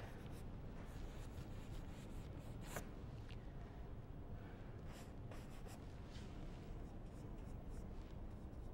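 Faint, irregular scratchy strokes of a paintbrush dragging oil paint across a stretched canvas.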